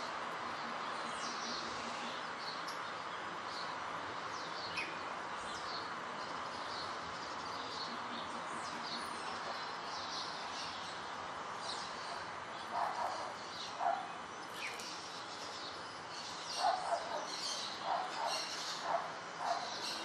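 Steady hiss of rain falling on leaves and flowers, with small birds chirping throughout. From a little past halfway, a louder, lower-pitched animal call repeats in short bursts, roughly once or twice a second.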